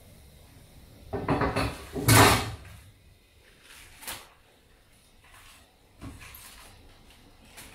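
Napa cabbage pieces going into a wok of boiling water, with two loud splashes about a second and two seconds in, then a few softer splashes and rustles as the leaves are pressed down.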